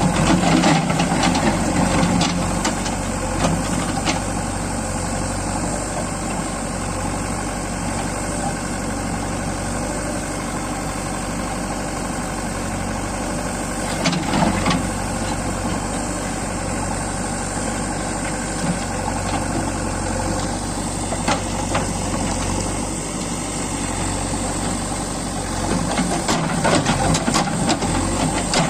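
JCB 3DX backhoe loader's diesel engine running steadily, with louder spells near the start, about halfway through and near the end, and scattered sharp knocks.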